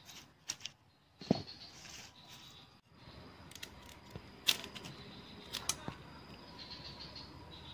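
Large knife blade cutting and shaving a wooden stick: a handful of sharp clicks and scrapes at irregular intervals, with one duller knock a little over a second in.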